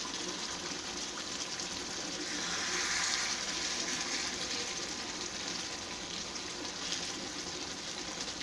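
Paneer and potato curry sizzling and bubbling in a pan as a wooden spatula stirs it: a steady hiss that swells a little a few seconds in. The gravy has cooked down with oil floating on top, the sign that the curry is done.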